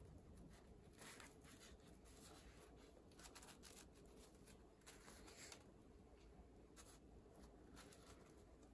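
Faint, intermittent rustling and scraping of paper and string as a rolled paper scroll is handled and string is wound around it to tie it, over a low room hum.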